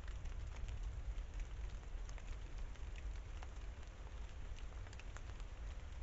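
Rain falling on forest vegetation and leaf litter: a steady patter with scattered single drops ticking, over a low rumble.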